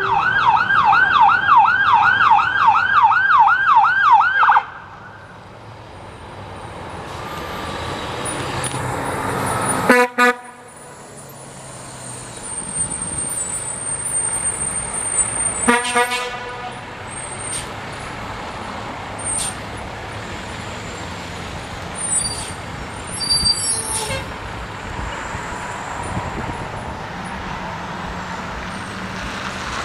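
An electronic siren yelping in fast rising-and-falling sweeps, cut off after about four and a half seconds. A heavy vehicle then draws closer with a rising engine sound, and an air horn sounds two short blasts, about ten and sixteen seconds in, over traffic noise.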